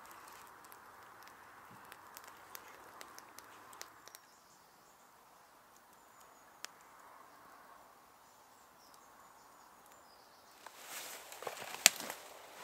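Footsteps crunching and rustling through leaf litter and undergrowth near the end, with one sharp loud crack. Earlier, a campfire gives faint crackles over a low hiss.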